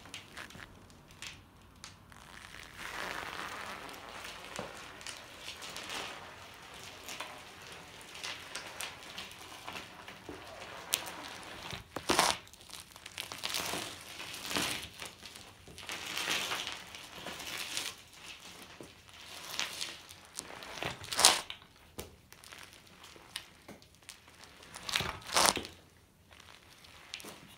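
Knobby mountain-bike tyres, low on air and nearly flat, rolling slowly back and forth over gritty concrete: an irregular crunching and crackling as grit is pressed under the soft tread, with a few sharper knocks along the way.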